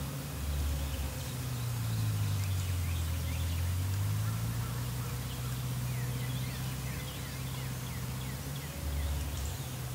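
Feral hogs grunting low and continuously at close range, with faint bird chirps.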